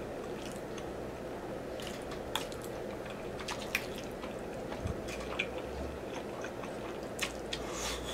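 Close-up mouth sounds of a man chewing and slurping spaghetti with meat sauce: scattered wet smacks and clicks over steady low room noise.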